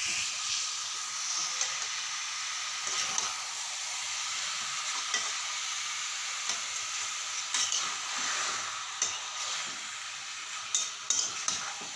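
Chicken masala sizzling as it is slow-fried (bhuna) in a steel kadhai, a metal spatula stirring and scraping it around the pan with scattered clicks over a steady frying hiss.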